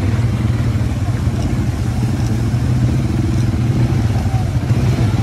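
Quad-bike (ATV) engines running steadily at low speed as the bikes ride along a trail: an even, low drone.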